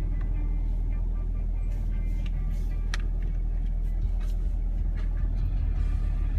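Camaro SS V8 engine running with a steady, deep low rumble.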